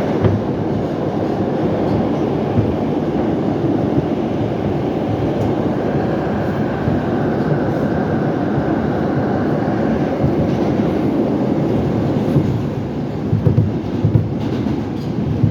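R142 subway car running fast through the tunnel, heard from inside the car: a steady roar of wheels on rail, a faint high whine in the middle, and a run of clacks over the rail joints near the end.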